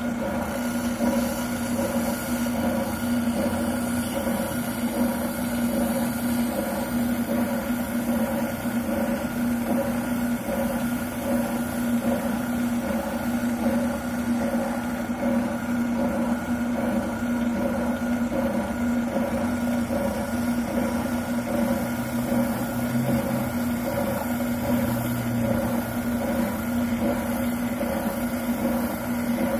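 Wilton oscillating sander running steadily with a constant motor hum, sanding down a plastic shotgun buttplate.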